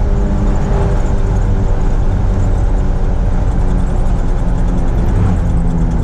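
Ford F-150 pickup driving, its engine running steadily under a heavy low rumble of road and mud-terrain tyre noise, heard from inside the cab.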